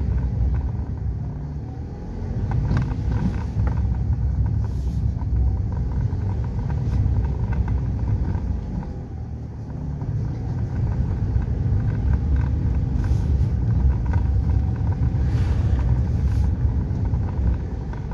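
Mitsubishi eK Custom kei car driving along a narrow road, heard from inside the cabin: a steady low engine and tyre rumble that swells and eases over a few seconds.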